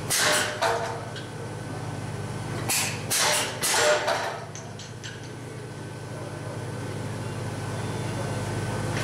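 Power hammer striking a handled top tool on red-hot steel bar stock in short runs of blows, a couple near the start and a cluster of about four around three to four seconds in, over the steady hum of the hammer's motor.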